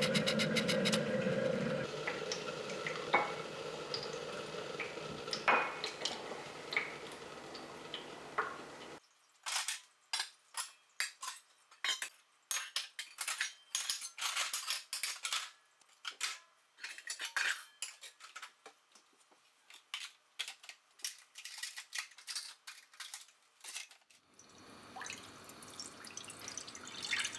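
Plates, bowls and cutlery clinking and knocking as they are washed and stacked into a plastic dish drying rack, a long run of quick sharp clinks. Near the end, water pours from a filter jug into a frying pan.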